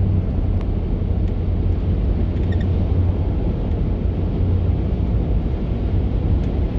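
Steady low road and engine rumble heard inside the cabin of a moving vehicle.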